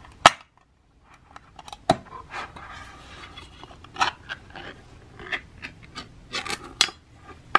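Ring-pull lid of a metal cat-food can being opened: a sharp click as the tab breaks the seal, then scraping and crackling clicks as the lid is peeled back around the rim.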